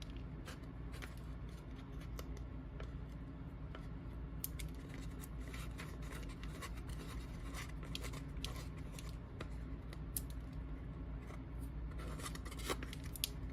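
Small handling noises of craft board pieces being pressed and shifted into place while glued: scattered light clicks, taps and scratches over a steady low hum.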